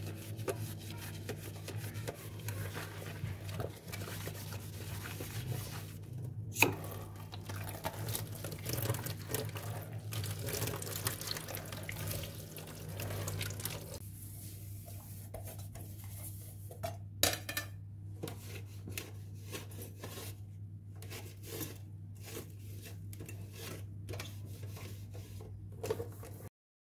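Dishwashing at a kitchen sink: tap water running and a sponge scrubbing a plate, with a few sharp clinks of dishware. About halfway through the water stops, and short, separate wiping and rubbing strokes follow as a rice cooker and its lid are cleaned with a cloth, with a low steady hum underneath.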